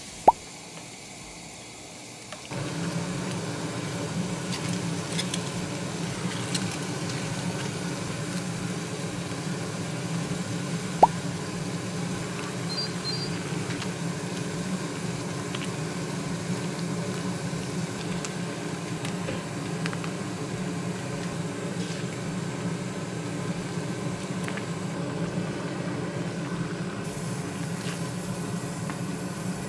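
Noodle soup broth simmering in a small saucepan on a gas burner, a steady bubbling that starts a couple of seconds in and keeps on evenly. Two sharp clinks of a utensil on the pan, one right at the start and one about eleven seconds in.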